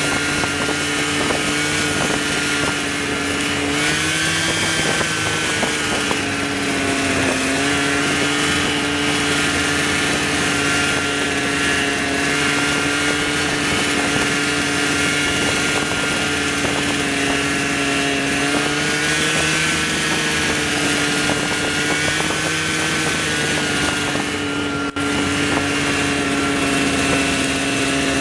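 A vehicle engine running at a steady speed, its pitch sagging slightly and recovering a few times as the load changes, with a brief dip in level near the end.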